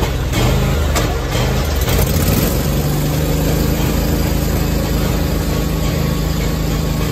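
Fuel-injected Scag V-Ride stand-on mower's engine running, uneven at first, then settling about two and a half seconds in into a steady idle.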